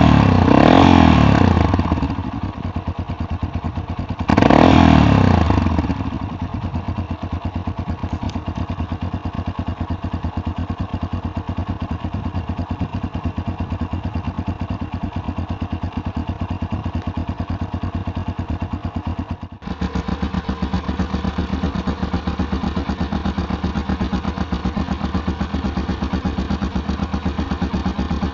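Yamaha Tricker XG250's single-cylinder engine running through a K2-tec aftermarket muffler. It is revved briefly at the start and again about four seconds in, then idles steadily. About two-thirds of the way through there is a brief break, and the idle carries on with a slightly different tone.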